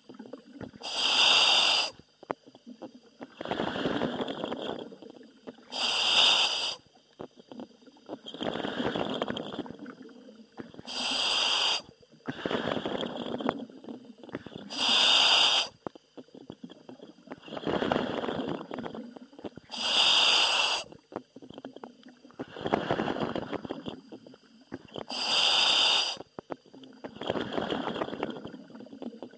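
A diver breathing through a helmet demand valve, about six breaths: each one a short sharp hiss with a whistling edge, then a longer bubbling rumble as the air is let out.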